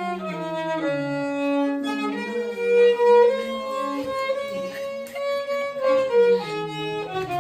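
Instrumental music led by bowed strings, with several held notes sounding together and changing pitch every second or so.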